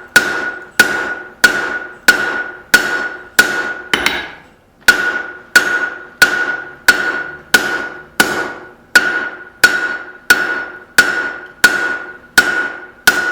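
Blacksmith's straight-peen hammer striking hot steel over the anvil horn while drawing out tong reins. Steady blows about one and a half a second, each with a bright ringing ping from the anvil, with a short pause about four seconds in.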